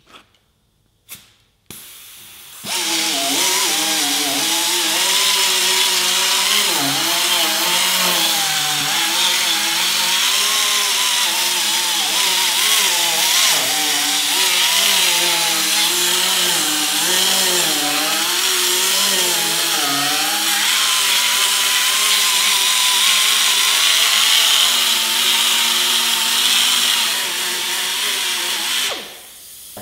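Right-angle pneumatic grinder with a sanding disc stripping paint from a car's steel wheel arch down to bare metal. It is a loud, steady hissing whine whose pitch wavers up and down, starting about three seconds in and stopping just before the end.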